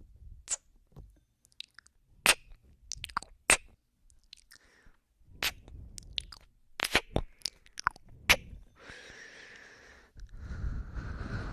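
Close-up binaural ASMR mouth sounds: a string of wet lip smacks and kissing clicks, then two long breaths near the end.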